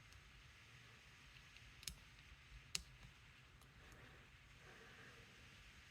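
Near silence broken by two faint, sharp metallic clicks a little under a second apart: small parts of a padlock and its tools being handled while it is taken apart.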